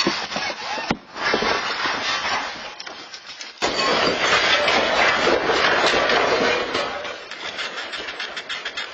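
Dense rattling and clattering din of things being shaken, typical of a building and its contents during an earthquake. It surges suddenly louder about three and a half seconds in and eases off near the end.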